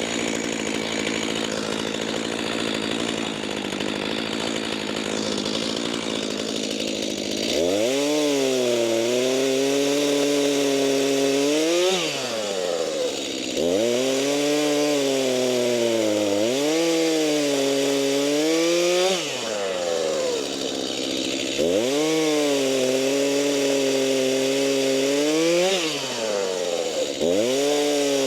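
Two-stroke Stihl chainsaw running at a low, steady speed, then opened up to full throttle about seven seconds in and cutting into cherry logs: four high-revving cuts in which the engine pitch sags under load and recovers, with brief drops in revs between them.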